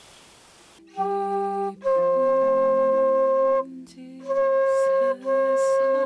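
Transverse bamboo flute playing a slow melody of long held notes, starting about a second in and stepping up in pitch near the end, over lower sustained accompanying tones.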